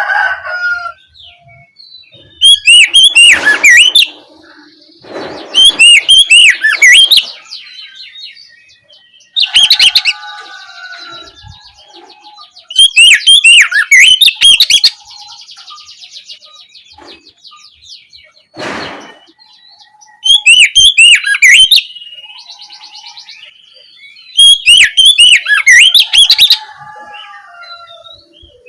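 Oriental magpie-robin singing loud phrases, each a rapid string of sharp, repeated notes lasting one to two seconds, about six times, with softer twittering between the phrases.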